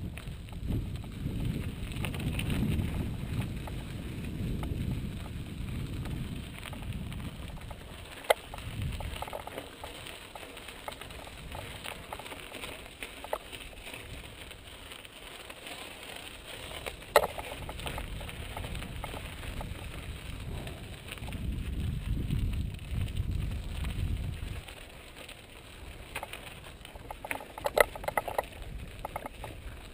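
Mountain bike ridden over dirt and gravel singletrack: tyres crunching on the gravel, with wind rumbling on the helmet camera's microphone, swelling twice. A few sharp clacks as the bike jolts over rocks, a loud one about midway and a cluster near the end.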